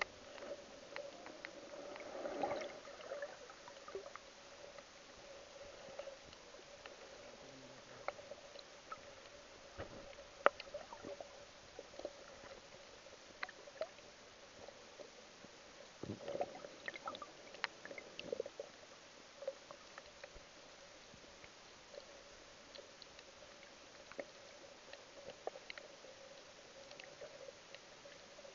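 Muffled underwater sound picked up by a camera submerged in shallow reef water: a faint steady hum with scattered small clicks and crackles, and brief louder rushes of water about two seconds in and again about halfway through.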